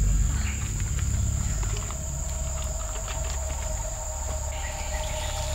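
Insects buzzing in a steady, high-pitched drone, over a low rumble. A second, lower steady tone joins about halfway through.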